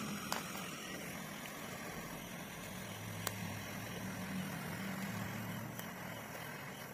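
Small handheld gas torch burning with a steady hiss, with a few sharp clicks.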